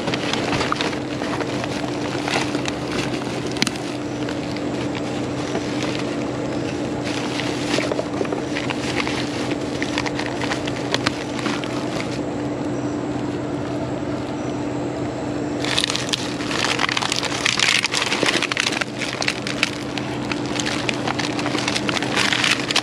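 Black plastic trash bags rustling and crinkling as gloved hands rummage through them, with snack wrappers and cardboard boxes shifting. The crinkling eases for a few seconds about halfway through and then picks up again, more busily, over a steady low hum.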